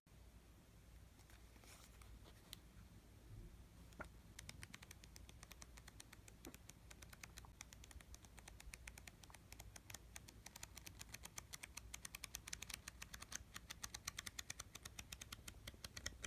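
Paper pages of a hand-drawn flipbook flicking one after another off the thumb, a rapid pattering run of tiny clicks. It starts about four seconds in and grows louder toward the end.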